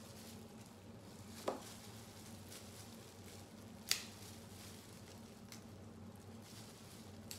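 Snow crab shell cracking as the legs are snapped apart by hand in plastic gloves, with two sharp cracks about a second and a half and four seconds in and soft squishing and crinkling between them. A faint steady hum runs underneath.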